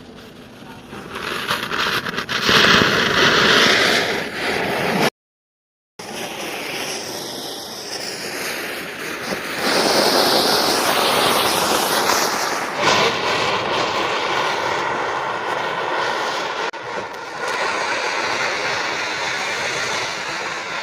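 Diwali fireworks, an anar fountain and a spinning ground chakri, burning with a loud, continuous hiss and faint crackle. The sound cuts out for about a second some five seconds in, then the hissing carries on.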